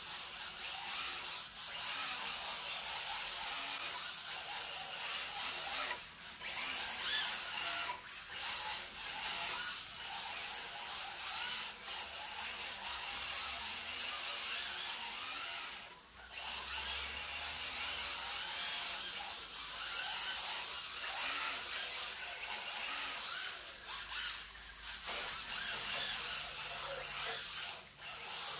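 1/10-scale electric RC drift car motor whining, rising and falling with the throttle as the car slides around the track. It drops out briefly a few times, most clearly about 16 seconds in.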